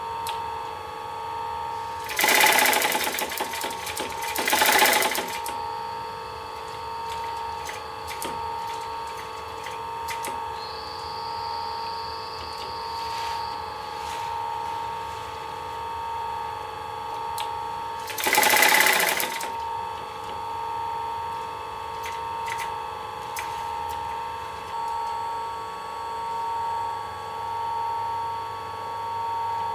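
Industrial sewing machine stitching upholstery fabric in short runs: two close together a couple of seconds in, and another about two-thirds of the way through, each lasting about a second. A steady hum continues between the runs.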